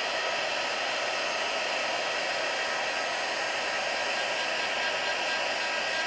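Handheld heat embossing gun blowing a steady stream of hot air, a fan hiss with a faint steady whine, melting clear embossing powder on a stamped sentiment.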